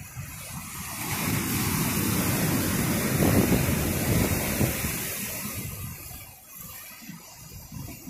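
Ocean surf breaking against shoreline rocks: a wave surges in, loudest a little past the middle, then washes back and fades.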